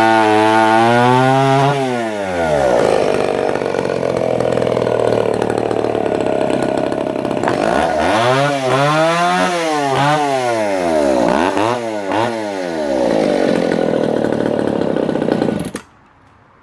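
Echo CS-302 two-stroke chainsaw running at high revs, then held steadier in a cut for several seconds, then revved up and down several times before it cuts off abruptly near the end.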